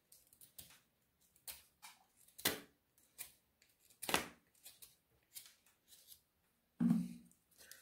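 Sparse small clicks and snips of a hand tool at work on a potato and a rose cutting, the sharpest about two and a half and four seconds in, with a brief voice sound near the end.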